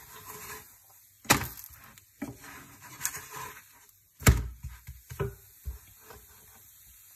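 A wooden spatula knocking against a nonstick frying pan and plate as a roti is handled and moved into the pan: five sharp, separate knocks, the loudest about four seconds in.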